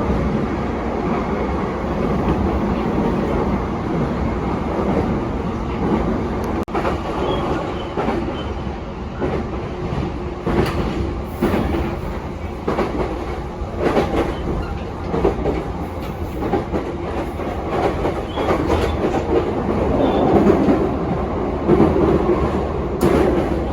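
JR East E233-7000 series electric train running at speed, a steady rumble of wheels on rail broken by irregular rail-joint clicks, heard from inside the car.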